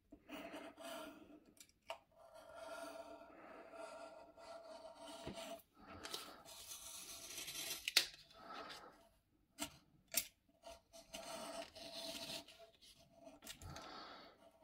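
Circle cutter's blade scratching through paper as it is swung round its centre pivot, in several faint scraping strokes. A few sharp clicks come about 2, 8 and 10 seconds in.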